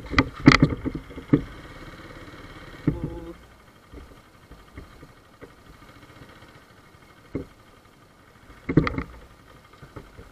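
Honda C70 moped's small four-stroke single-cylinder engine running at low road speed, with several short sharp knocks: a cluster in the first second, a louder one about nine seconds in.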